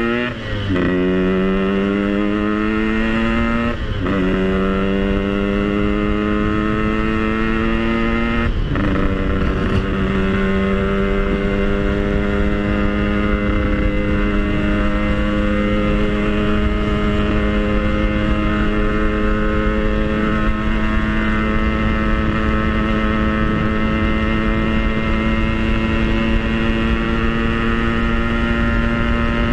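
Yamaha RX-King two-stroke single-cylinder motorcycle engine accelerating hard. Its pitch rises and drops at three gear changes in the first nine seconds, then it runs at a steady pitch while cruising.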